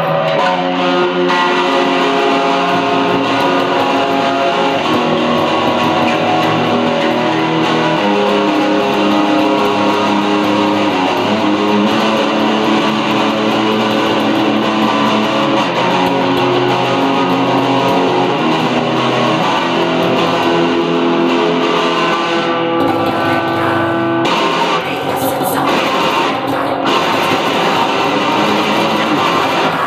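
Electric guitar played loud in a loose, improvised jam: held notes and chords changing pitch every second or so, without pause.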